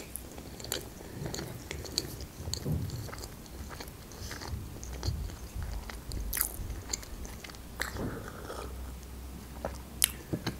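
Close-miked chewing of a bite of lavash roll: soft mouth sounds with scattered small clicks.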